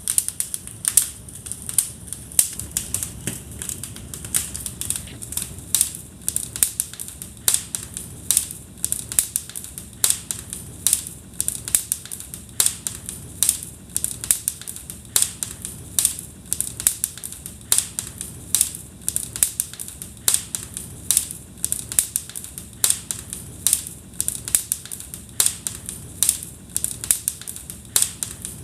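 Wood fire crackling in a fireplace: irregular sharp pops and snaps, a few each second, over a low steady rumble of burning logs.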